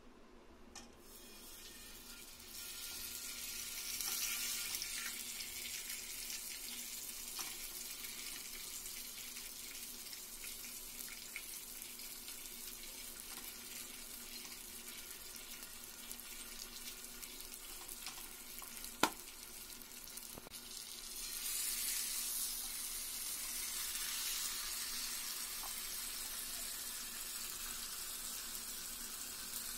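Marinated chicken leg pieces sizzling in oil on a hot tawa griddle, the sizzle swelling each time a piece is laid down, about four seconds in and again about two-thirds through. A single sharp click sounds shortly before the second swell.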